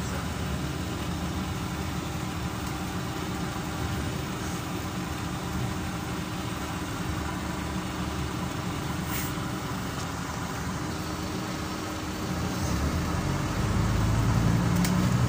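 A 2009 Scania CN270UB city bus heard from inside the cabin while under way: the steady low hum of its nine-litre five-cylinder engine and road noise. About thirteen seconds in the engine grows louder.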